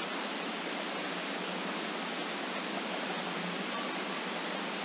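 Steady, even hiss of background noise with nothing else heard: the recording's microphone noise floor.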